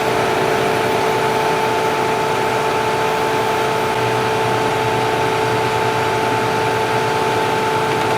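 Combine harvester running steadily: an even machine noise of engine and fans with a constant whine.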